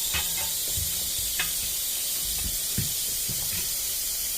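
Steady high hiss with a few light clicks and knocks.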